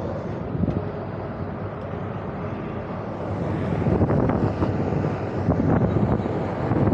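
Steady rumble of rooftop air-conditioning equipment running, with wind on the microphone and a few light knocks and clicks from about four seconds in.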